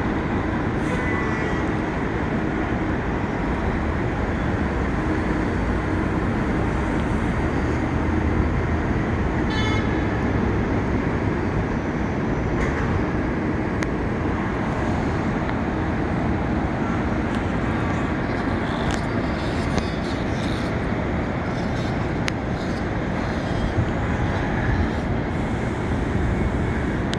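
Steady downtown street traffic heard from a rooftop above it: a continuous low rumble of engines and tyres, with a few faint brief clicks and squeaks over it.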